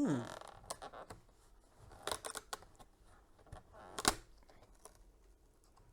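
Small cardboard advent-calendar box being opened by hand: scattered rustles and light clicks of card and packaging, with a sharp click about four seconds in.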